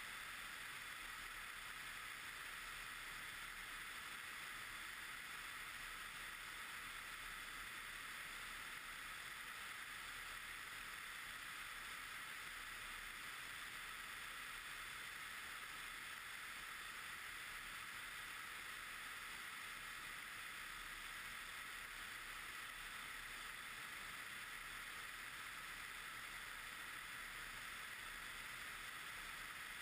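Steady, even rushing hiss of airflow past a wing-mounted camera on a Pipistrel Virus Short Wing light aircraft in flight; no engine note stands out.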